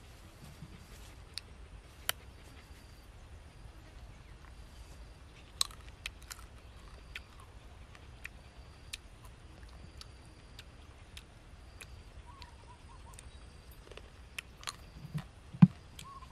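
Sporadic small clicks and cracks of thin fruit skins being peeled by hand, with mouth sounds of eating, over faint bird chirps.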